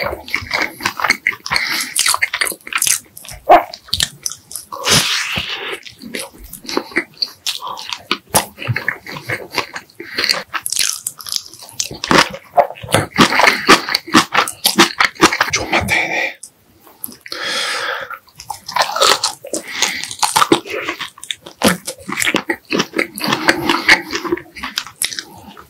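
Close-miked chewing and biting of food, with wet smacks and crunches in quick, irregular succession.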